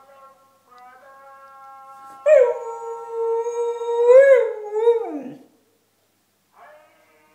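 Husky howling: a faint howl at first, then about two seconds in a loud, long howl held on one pitch. It wavers briefly and slides down in pitch as it ends.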